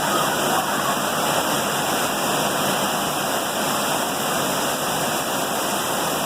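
Heavy rain pouring down with rushing runoff water: a steady, dense hiss that doesn't let up.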